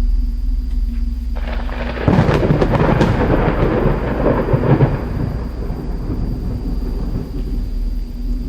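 A thunderclap: a crackle starts about a second and a half in and breaks into a heavy low crash a moment later, then rolls away as a rumble that fades over the next few seconds. A steady low hum runs underneath.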